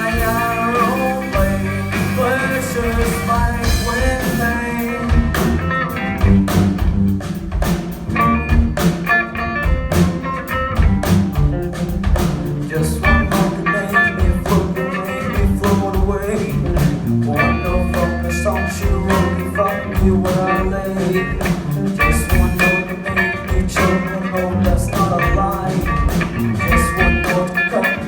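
Rock band playing, with guitar, bass and drum kit keeping a steady beat.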